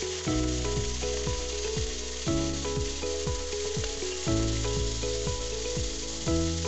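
Chicken pieces sizzling as they fry in hot oil in a steel wok over a charcoal fire. Background music with a steady beat plays over it.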